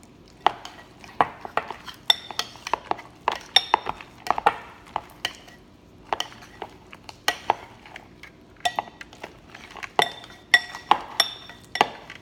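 A spoon stirring slime in a bowl, clinking and tapping against the sides at an irregular pace, several times a second; some of the clinks ring briefly.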